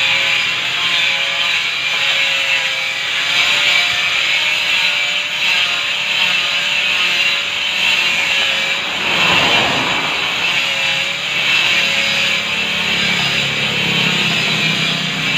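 Handheld power grinder running against a granite countertop slab: a steady, high hissing whir with a slightly wavering motor tone. A vehicle passes about nine to ten seconds in.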